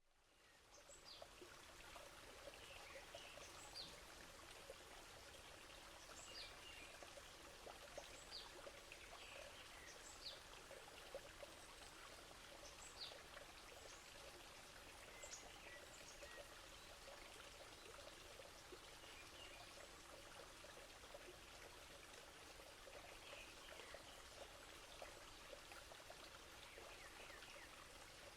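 Flowing water running steadily, with a bird repeatedly giving short, high, falling calls every second or two, more often in the first half.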